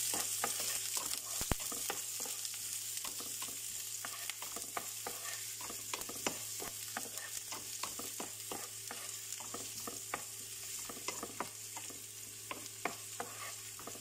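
Chopped onion and garlic sizzling in hot oil in a non-stick frying pan, stirred with a wooden spatula that clicks and scrapes against the pan a few times a second.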